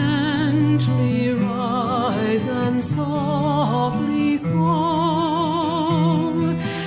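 Background music: a slow melody with heavy vibrato over held low notes.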